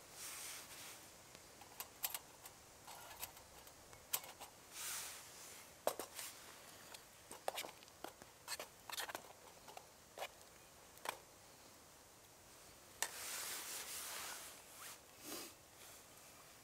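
A metal spork clicking and scraping against a metal cooking pot while thick lentil soup is stirred, in scattered short strokes. Soft rustles of a jacket sleeve come in between, with a longer rustle near the end.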